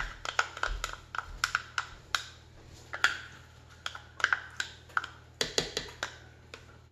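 Spatula scraping and tapping pumpkin puree out of a plastic measuring cup into a slow-cooker crock: a run of irregular clicks and taps, some of them with a short ring.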